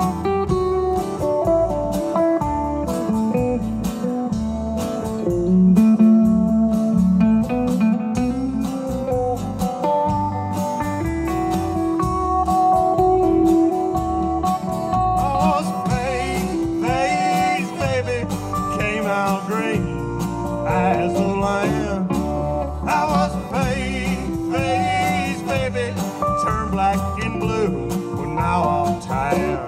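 Live band playing an instrumental break between verses, with a guitar taking the lead over the band. From about halfway in, the lead notes bend and waver.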